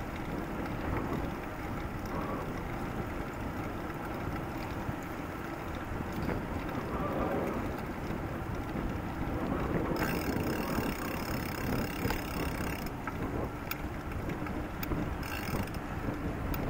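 Wind buffeting the microphone of a camera on a moving bicycle: a steady low rumble of noise. For about three seconds, a little past the middle, a higher hiss joins in.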